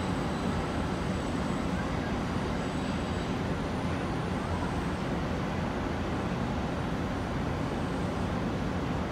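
Steady running noise of a distant New York City Subway train moving along an elevated viaduct, blended with city traffic noise.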